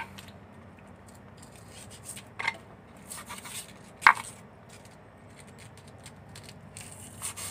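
Kitchen knife cutting a small piece of styrofoam on a wooden cutting board: a few short scraping strokes and a sharp tap about four seconds in.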